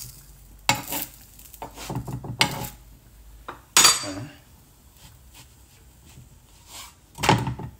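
Metal spatula clanking and scraping against a non-stick frying pan while a chapati is worked in it: several sharp knocks, the loudest a little under four seconds in and another near the end.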